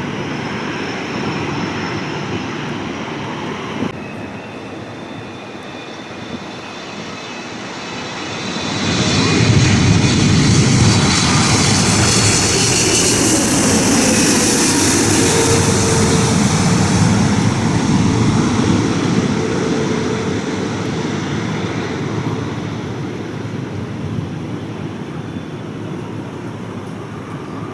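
Jet airliner passing by: its engine noise swells about eight seconds in, is loudest through the middle with a high whine, then slowly fades away.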